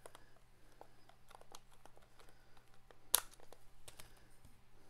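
Small clicks and handling noises of a plastic satellite speaker housing being worked by hand, with one sharp plastic click about three seconds in and a lighter one a second later. A faint steady hum runs underneath.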